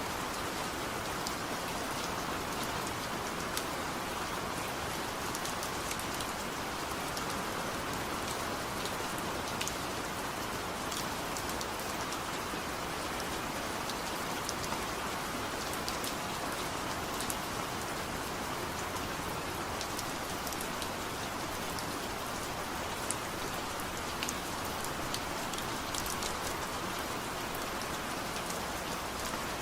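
Steady light rain falling, an even hiss with scattered individual drops pattering on a surface, no thunder.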